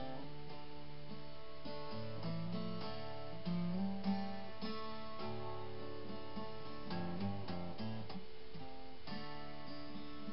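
Background music with guitar, playing at an even level.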